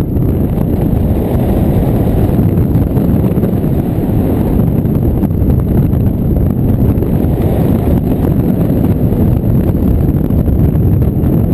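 Airflow buffeting the microphone of a camera mounted on a hang glider's wing in flight: a loud, steady, low wind rush with no breaks.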